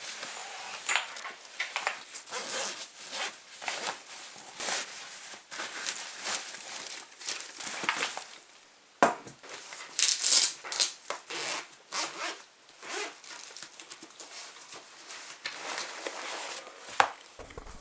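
Sketchbooks and paper being handled: a run of short rustling and scraping strokes, several a second, with a brief lull about nine seconds in.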